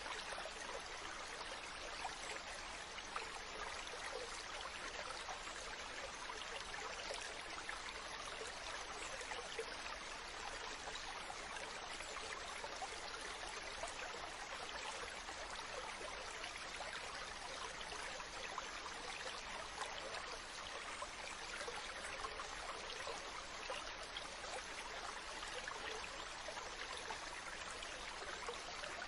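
Mountain stream running steadily, water splashing and burbling over rocks.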